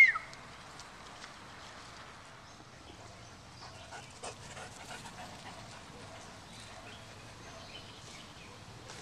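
A German Shepherd gives one short, high yelp that drops in pitch, right at the start. After it there is only a faint background with a few soft ticks.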